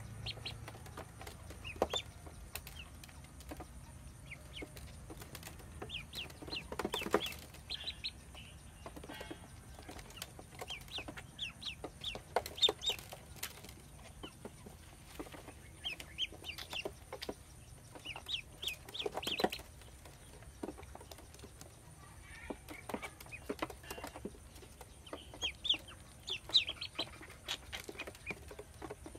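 Ducklings peeping: many short, high chirps coming in little clusters, with a few sharp knocks among them.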